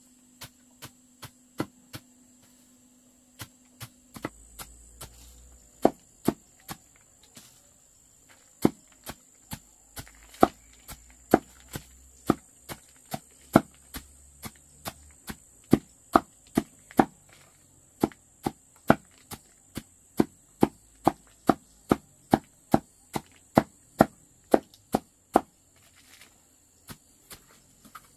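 A long run of chopping strokes, a blade striking wood, at roughly two a second. The strokes are light at first, heavier from about four seconds in, and lighter again near the end.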